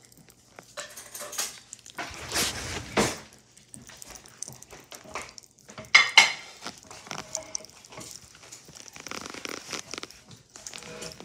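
Pop Rocks candy dropped into a glass bowl of water and the bowl moved about on the table, with scattered small clinks and crackles. A louder, short sound comes about six seconds in.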